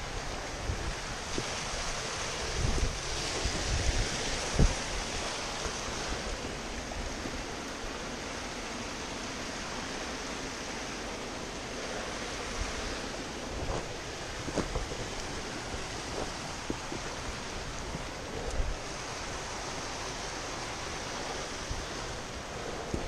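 Steady rushing outdoor noise of wind on the microphone and running water, swelling at times, with a few dull thuds of footsteps on rock.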